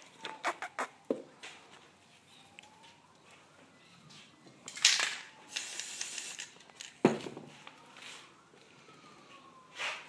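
A faint siren wailing slowly up and down under close handling noise: a run of clicks in the first second, a short loud hiss about five seconds in, a sharp knock about two seconds later, and another burst near the end.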